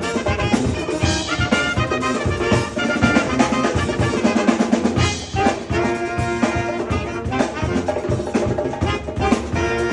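Brass band playing upbeat jazz: trumpets and trombones carry the tune over a driving drum beat.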